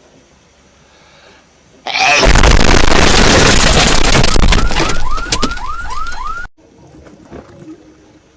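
A hedgehog's sneeze blown up as a meme sound effect: after a low background, a sudden, very loud, distorted blast lasts about four and a half seconds. Near its end comes a run of about six rising whoops, and it cuts off abruptly.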